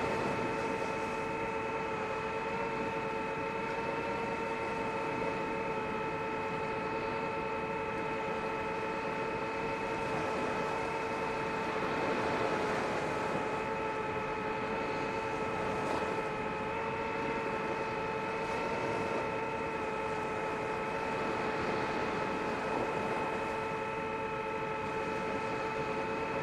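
DJI FPV drone's motors and propellers whining at a steady pitch in flight, over a rushing hiss of air.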